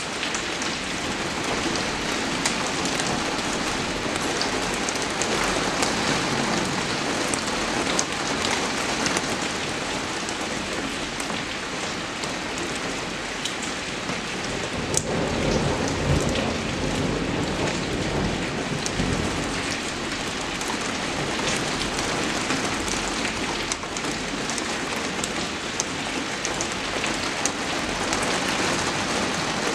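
Steady rain falling, a dense hiss with scattered sharp drop ticks. A low rumble swells briefly around the middle.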